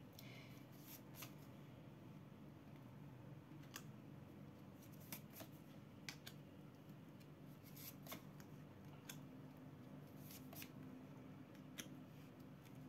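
Near silence: room tone with a low steady hum and a dozen or so faint, irregular clicks.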